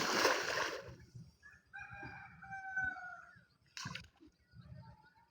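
A rooster crowing once, a single held call about a second and a half long that drops slightly at its end. It is preceded by a loud, short burst of noise at the very start, and a sharp knock comes near the end.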